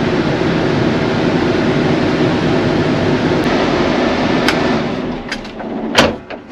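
John Deere tractor running down a gravel road, its engine and road noise heard from inside the cab as a steady, even noise. About five seconds in the noise falls away, and a few sharp clicks follow, the loudest about a second later.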